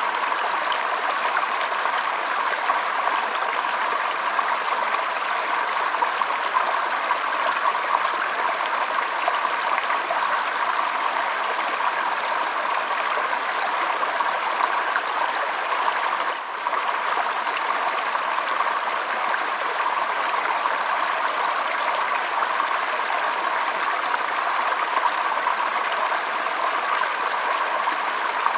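Running water flowing steadily, an even rushing hiss with one momentary dip a little past halfway.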